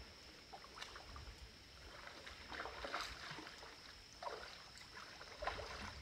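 A hooked channel catfish splashing at the water's surface during the fight, in irregular bursts, the loudest about three seconds in and again about five and a half seconds in.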